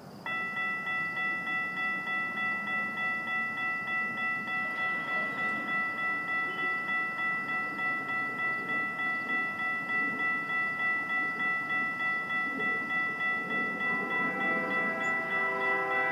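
Railroad crossing warning bell starting up as the signals activate, then ringing steadily at about three strokes a second while the gates come down. About fourteen seconds in, a second set of lower tones joins it.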